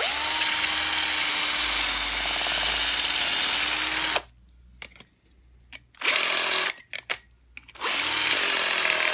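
Cordless drill boring out a brass rivet in a steel strip, with a steady motor whine. It runs for about four seconds and stops, gives a few short bursts, then runs steadily again near the end.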